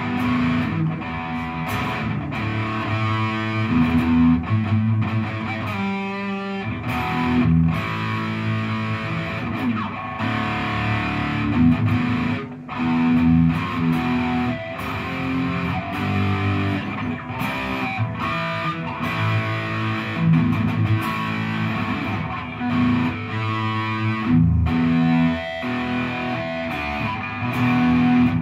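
Santa Cruz electric guitar played through an amp with a fierce distorted tone: chopped chord riffs that start and stop every second or so, with a fast run of single notes about six seconds in.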